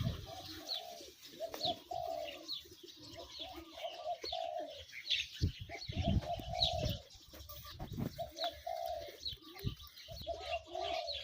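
Doves cooing in repeated short notes, with small birds giving quick high chirps over them. A few dull thumps come through now and then.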